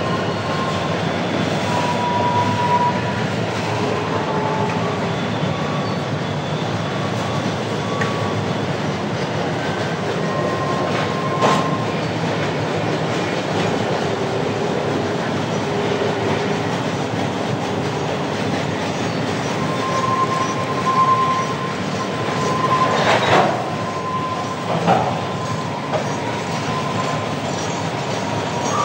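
Freight train cars rolling past on the rails, a steady rumble and rattle of wheels. Thin wheel squeals come and go, and there are a few sharp clanks: one about a third of the way in and two close together near the end.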